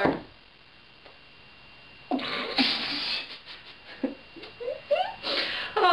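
A woman's breathy outburst, muffled behind her hand. It comes about two seconds in as one long burst, followed by a few shorter ones.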